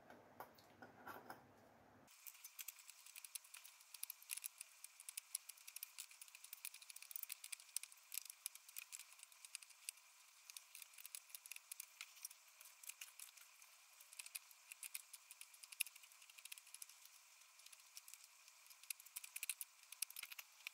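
Faint, irregular metal clicks and scrapes of a spanner levering up the lip around a hole in a sheet-metal panel, pulled a little at a time to form a raised flange. They start about two seconds in and come in quick, uneven bursts.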